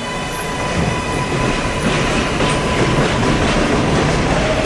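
Electric subway train running along the rails: rumbling wheel and track noise with a clickety-clack, under a steady motor whine that fades out about four seconds in.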